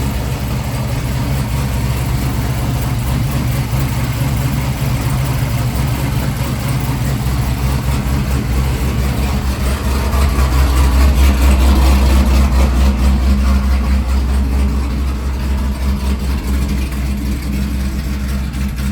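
Chevrolet Camaro ZL1's supercharged 6.2-litre V8 idling steadily, getting a little louder for a few seconds around the middle. It is running on a freshly installed flex fuel sensor, with no fuel leaking.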